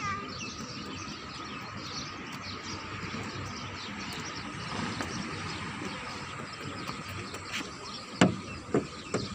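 Outdoor park ambience: small birds chirping over a steady low background rumble, with a couple of sharp knocks about eight seconds in.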